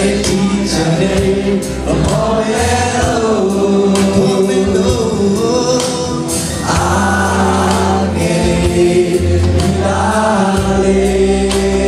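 Live worship band (acoustic guitar, keyboard, drum kit) playing a Burmese-language Christian worship song, with singers on the stage and the congregation singing along as a group, loud and steady with a regular drum beat.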